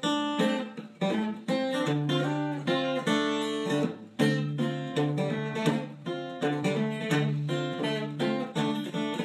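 Background music: plucked acoustic guitar notes about twice a second, with a low sustained bass line entering about two seconds in.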